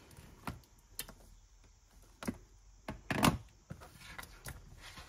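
Desk handling noises: a series of knocks and light clatters as a calculator is put down and a paper budget planner is shifted and turned on the desk. The loudest clatter comes about three seconds in.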